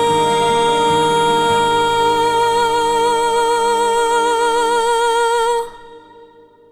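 Music: the song's final long held note, steady at first and then with a widening vibrato, over a low accompaniment. It cuts off about five and a half seconds in and trails away in a short echo.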